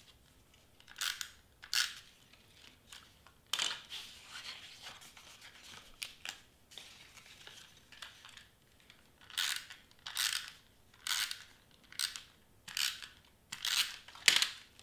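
Hand-held double-sided tape runner being pulled across cardstock: a series of short rasping swipes, about one a second in the last five seconds, with a longer stretch of paper rustling a few seconds in.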